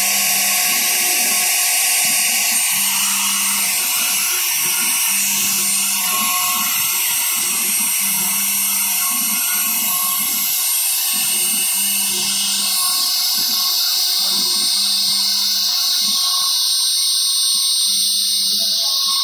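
Shapeoko 3 CNC router's spindle running with a steady high-pitched whine. Short spells of lower motor hum from the axis motors come and go about once a second as the machine moves.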